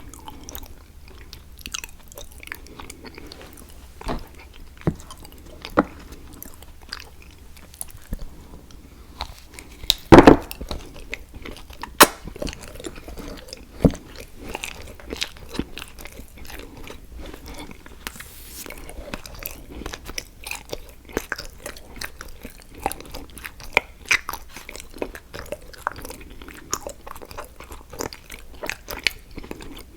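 Close-miked biting and chewing of an edible chocolate picture frame: crisp cracks and crunches amid steady chewing. The loudest bite comes about ten seconds in.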